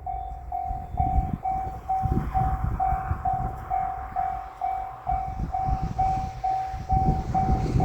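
Japanese level-crossing warning bell ringing, a steady electronic "kan-kan" at about two rings a second, over an uneven low rumble.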